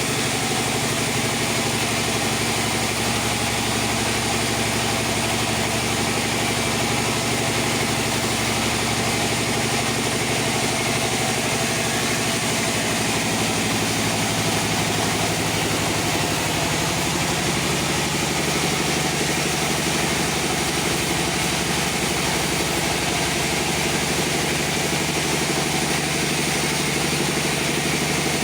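Circular sawmill machine running steadily, a constant engine-like drone with a broad hiss above it.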